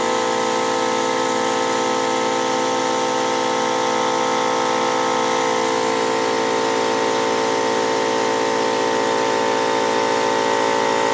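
Motors of an automated assembly fixture running steadily, turning its drill chucks: a constant whirring hum made of several fixed tones.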